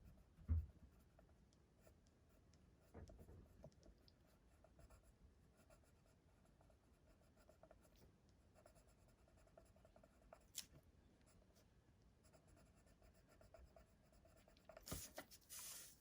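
Faint scratching of a watercolour pencil colouring on cardstock. There is a low thump about half a second in and a louder, longer scratch near the end.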